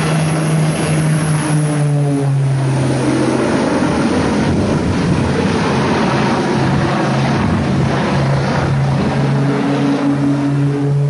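Twin-engine propeller airplane running loud, a steady engine and propeller drone as it flies low past. The drone drops in pitch about two seconds in and rises again near the end.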